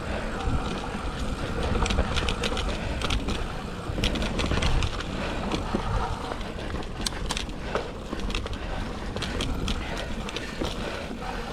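Mountain bike (a 2007 Cannondale Rush) rolling over a dirt trail: steady tyre and ground rumble with frequent rattles and clicks from the bike, plus wind noise on the microphone.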